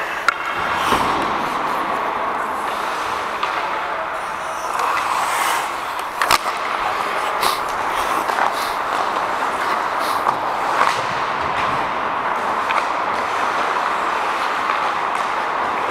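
Hockey skates gliding and scraping on the ice during play, with sharp clacks of sticks and puck now and then, the loudest about six seconds in.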